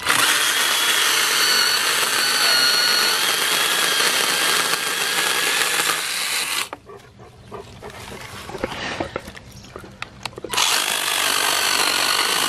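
Parkside 12 V cordless mini chainsaw running with a steady high electric whine as its chain cuts through a dry maple branch. It stops after about six and a half seconds, with a few light knocks during the pause, then starts again and cuts on about ten and a half seconds in.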